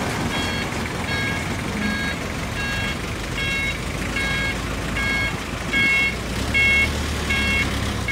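A homemade farm truck's reversing beeper sounding about once every three-quarters of a second, a short multi-tone beep each time, over its Kia engine running steadily underneath.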